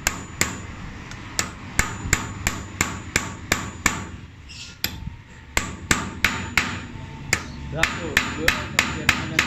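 Hammer blows struck in a steady rhythm, about three a second, with a break of about a second and a half midway before the hammering resumes.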